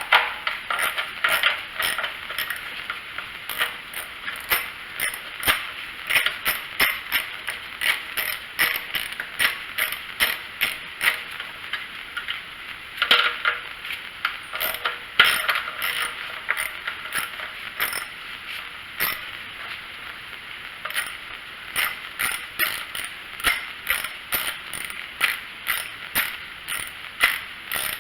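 Ratchet wrench with a 10 mm metric socket clicking over and over in quick runs with short pauses, as it backs off the two nuts holding the carburetor on a 212cc Predator engine.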